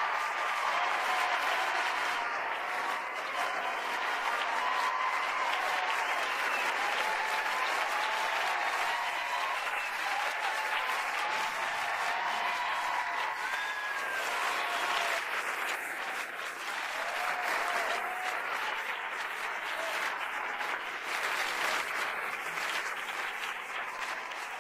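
Television game-show studio audience applauding and cheering: dense, steady clapping with scattered shouted cheers and whoops mixed in, holding at an even level throughout.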